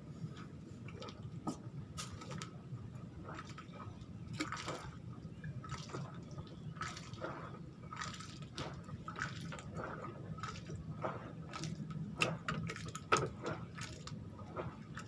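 Water lapping and dripping in irregular small splashes and slaps, over a low steady hum.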